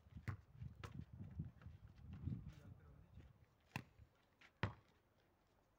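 Volleyball struck back and forth by hand, a few sharp smacks: two close together near the start and two about a second apart near the end, the last the loudest, over a faint low rumble early on.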